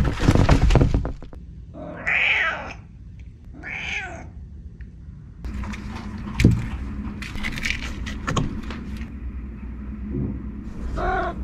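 A cat in a cardboard box: loud crinkling of tissue paper and scrabbling at the start, then two short meows about two and four seconds in. After that come scratching at the cardboard with a single thump about halfway through, and another meow begins near the end.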